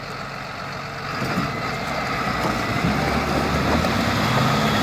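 Heavy vehicle engine running under load, growing steadily louder as it works during a pull of a stuck machine.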